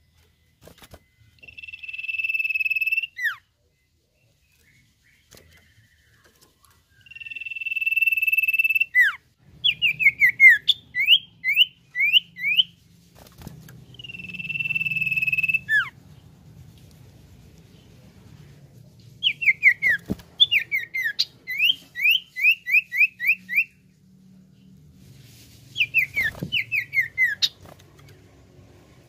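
Common iora singing: three long, steady whistles, each ending in a quick downward slur, alternating with rapid runs of short rising notes.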